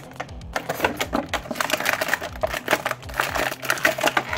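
Thin clear plastic packaging bag crinkling and crackling as it is handled and pulled open, a dense run of sharp crackles starting about half a second in.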